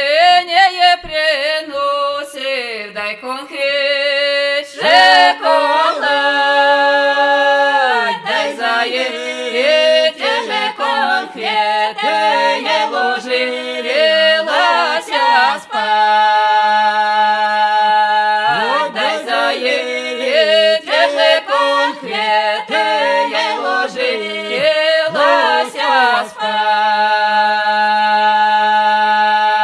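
Two women and a man singing a Ukrainian folk song a cappella in close village-style harmony, the voices moving in phrases with sliding notes. Near the end they hold one long steady chord.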